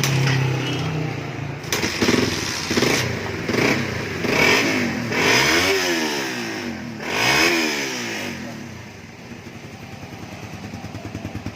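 Suzuki Raider 150 Fi motorcycle engine running through a stock Raider 150 carburetor-model exhaust pipe, revved in a series of throttle blips that rise and fall in pitch, then settling to a steady, quieter idle near the end.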